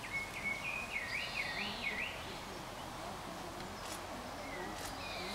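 A bird singing a short warbled phrase of quickly repeated rising-and-falling notes for about two seconds, over a steady outdoor background hiss, with a few faint clicks near the end.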